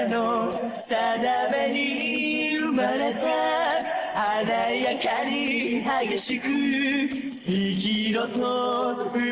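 Outro song: a voice singing a melody, the notes held and wavering with vibrato.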